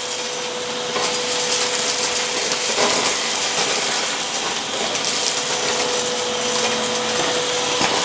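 Miyako 30-litre wet-and-dry drum vacuum cleaner running with a steady whine, its metal wand sucking up paper scraps and small hard seeds from a tile floor. The debris clicks and rattles as it is drawn up the tube.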